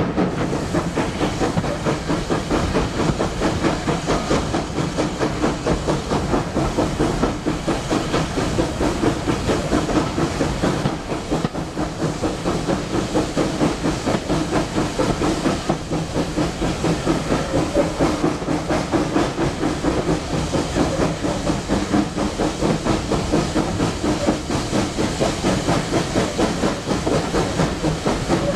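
Steam locomotive hauling its train, the exhaust chuffing in a fast, even rhythm over a steady steam hiss, heard from a carriage.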